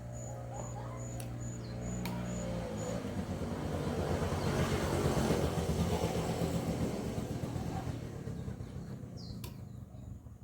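A motor vehicle passing by: a steady engine hum gives way to a swell of noise that builds to its loudest about halfway and then fades. A cricket chirps in even pulses during the first few seconds.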